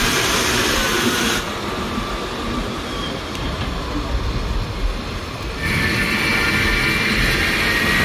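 Diesel engines of heavy dump trucks running as they drive over sand. The sound changes abruptly twice, and a steady high whine runs through the last couple of seconds.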